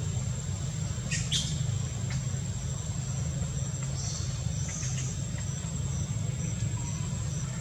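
Outdoor background noise: a steady low rumble like distant traffic, with a thin high whine, a faint regular high ticking, and a couple of short chirps about a second in.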